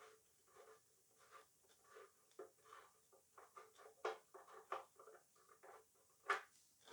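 Faint, irregular scraping and light clicks of hand-tool work on the engine while checking it for oil.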